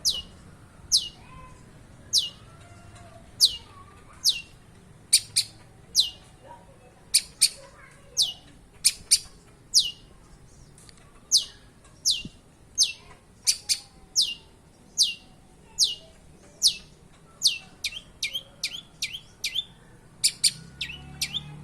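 Long-tailed shrike (cendet) calling: a long series of sharp, steeply falling high notes about a second apart, coming faster and closer together near the end.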